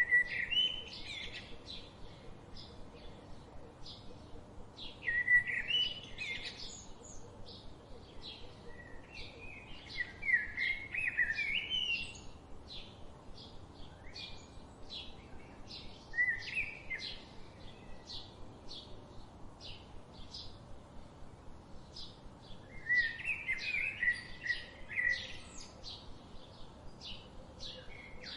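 Songbirds chirping and singing: a steady run of short high chirps, about two a second, broken every few seconds by louder warbling song phrases.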